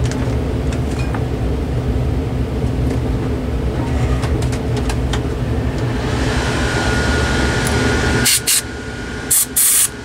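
Air purifier fan running with a steady hum. Near the end come about four short hisses of canned compressed air through a straw nozzle, blowing dust out of the computer, the last blast the longest.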